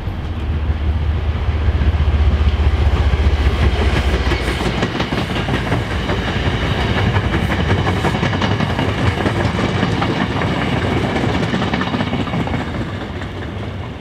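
A train passing close by: a heavy low rumble for the first five seconds or so, then a steady rush of rail noise with wheels clattering over the rails, easing off near the end.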